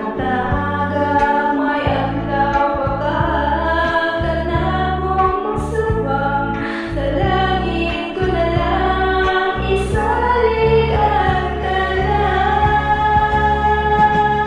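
A karaoke cover song: a singer's voice holding long, bending notes over a music backing track.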